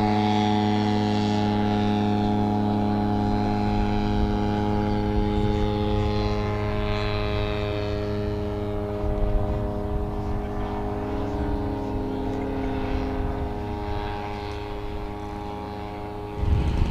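Engine and propeller of a model aircraft running steadily at a constant pitch, slowly growing fainter toward the end. Music cuts in just before the end.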